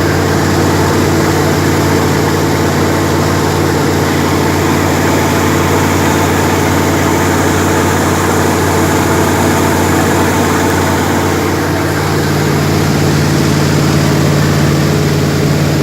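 Jet boat engine running steadily under a haze of rushing water and wind noise, with a slight change in its tone about twelve seconds in.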